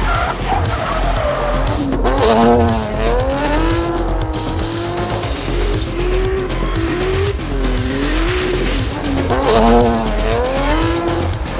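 Tyres of a 1,000-hp Infiniti Q60 drift car squealing in long wavering tones as it slides, with its engine running, over background music with a steady low beat.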